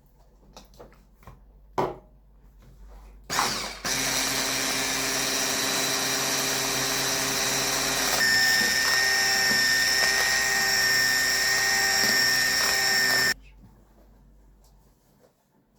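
Electric hand mixer starts about four seconds in after a few knocks. It runs steadily with a whine that rises a little in pitch about halfway through, then cuts off suddenly about four-fifths of the way in.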